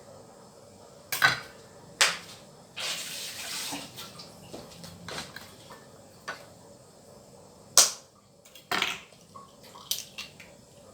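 Kitchen handling sounds: a series of sharp knocks and clacks of bowls and utensils being set down and moved, with about a second of rushing noise, like running water, just under three seconds in.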